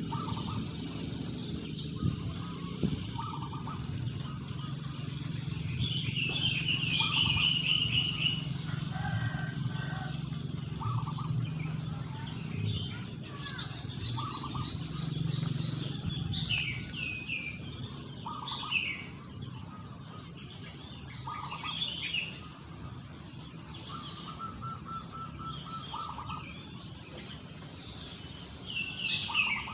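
Several wild birds chirping and calling over one another, with a fast trill about a quarter of the way in, over a steady low rumble.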